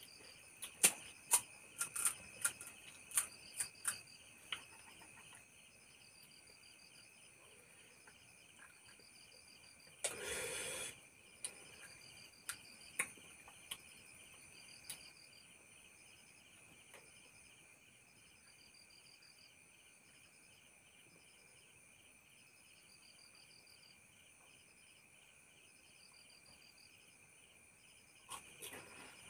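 Crickets chirping steadily in rapid pulses, with a run of sharp clicks and taps from the spoon and crisp puri shells in the first few seconds, a few more a little later, and a one-second burst of noise about ten seconds in.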